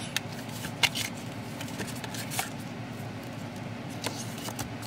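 Handling of a K-pop album's cardboard packaging, photobook and glossy photo prints: paper and card rustling and sliding, with a few sharp taps and clicks, the loudest about a second in.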